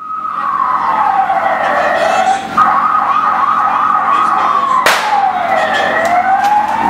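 Siren wailing at the start line of a street running race. Two tones overlap, one fairly steady and one sliding down and back up. A single sharp crack cuts through about five seconds in.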